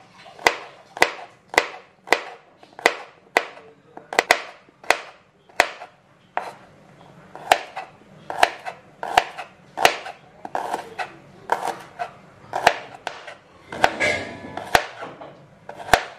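Kitchen knife slicing garlic cloves and then shallots on a plastic cutting board. The blade taps the board sharply, a little under twice a second, with a short pause partway through.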